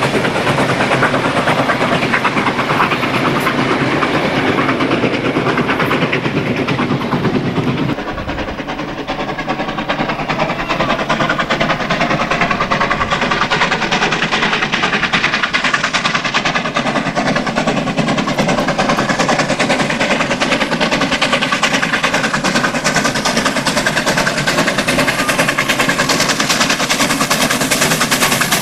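R class 4-6-4 Hudson steam locomotive, converted to oil firing with a double Lempor exhaust, working hard up a steep 1-in-50 grade: a loud, rapid, steady stream of exhaust beats. The sound dips briefly about eight seconds in, then the beats go on.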